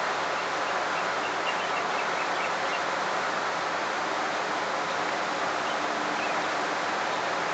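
Steady rushing outdoor background noise, even and unbroken, with a few faint high chirps about a second in.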